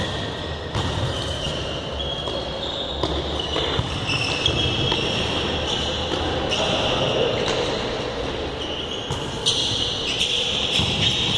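Futsal ball being kicked and bouncing on a hard indoor court, a few sharp knocks against a steady reverberant background of players moving in a large hall.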